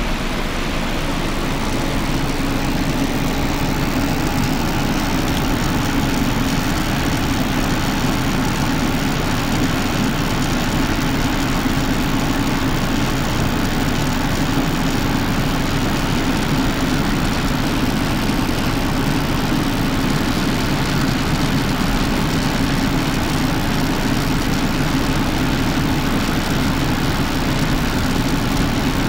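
HEC Winpower 550 W PC power supply running with a steady hiss over the hum of its cooling fan. The hiss, like crackling electricity, is a newly developed noise whose cause the owner doesn't know.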